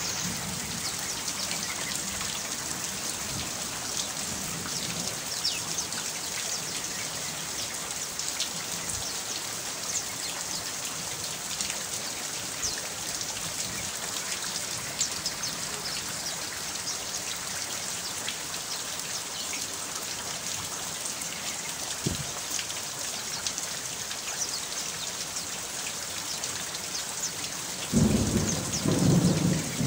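Steady rain falling, with many small drop ticks. A low rumble of thunder comes in near the end.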